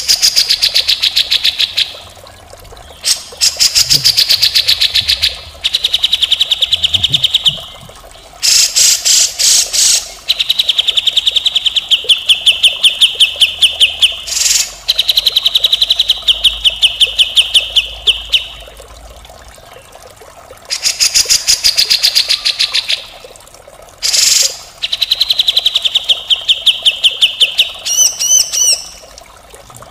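Grey-cheeked bulbul (cucak jenggot) singing harsh, rattling phrases of rapid repeated notes. Each phrase lasts one to three seconds, with short pauses between them, and a few shorter chirps come near the end.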